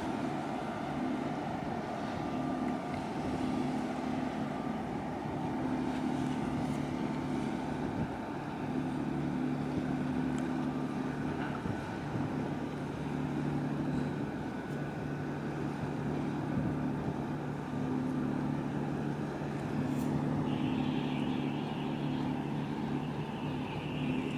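Low, steady drone of a ship's engine across the water, with a low hum that comes and goes over a haze of wind and water noise.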